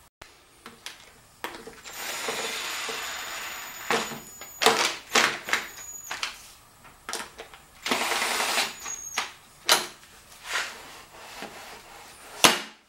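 Cordless drill-driver running in two bursts, about two seconds long just after the start and about a second long around eight seconds in, driving bolts into a scooter's seat hinge. Short clicks and knocks of parts being handled come between, and a sharp knock near the end as the seat comes down.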